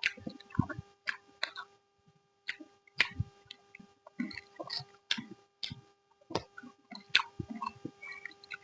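Close-miked eating sounds of a person chewing food, with irregular sharp clicks and wet mouth smacks every half second or so and short pauses between bites. A faint steady hum sits underneath.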